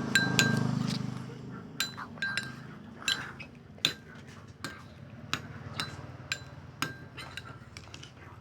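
A stirrer clinking against the side of a container as slime is stirred, with irregular sharp ringing taps about once or twice a second.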